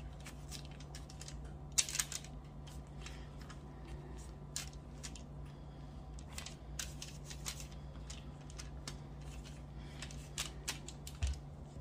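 Aluminium foil crinkling in scattered, irregular clicks and crackles as a gloved hand presses and turns lamb chops in flour on a foil-lined tray. A faint steady low hum runs underneath.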